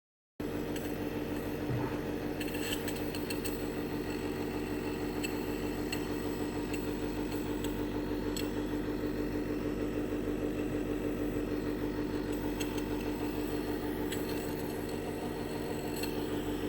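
Nebulizer compressor running: a steady buzzing hum with a fast, even pulse, starting abruptly about half a second in. It is the sign of an inhalation treatment under way for a flare-up of coughing and breathlessness.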